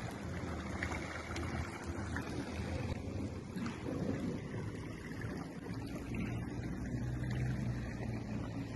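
Steady rushing of a waterfall, an even wash of water noise with a low rumble underneath.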